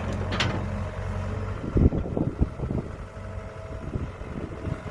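Kobelco 07 mini excavator's diesel engine running steadily, with a cluster of knocks and thuds about two seconds in, the loudest first, followed by scattered smaller knocks as the bucket scoops grass and soil.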